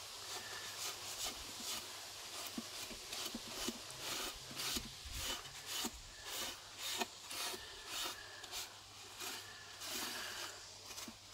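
A wad of paper towel rubbed back and forth over the ridged plate of an electric grill, wiping off grease and burnt-on bits in quick, repeated strokes.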